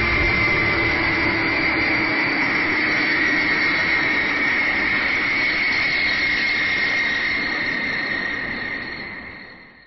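Jet airliner engines running with a steady rushing noise and a high whine, the whine drifting slightly lower; the sound fades out over the last couple of seconds.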